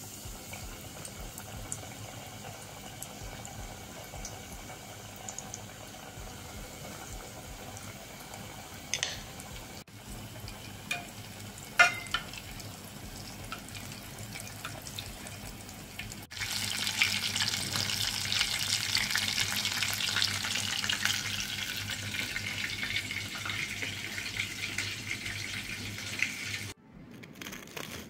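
Battered chicken strips deep-frying in hot oil in a stainless steel pot: a steady sizzling crackle that becomes clearly louder about two-thirds of the way through. A single sharp knock sounds around the middle.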